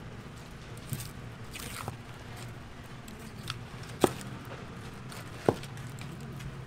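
Long knife cutting through blocks of ocean sunfish flesh on a wooden board, with quiet slicing and handling sounds and two sharp knocks, about four seconds in and a second and a half later.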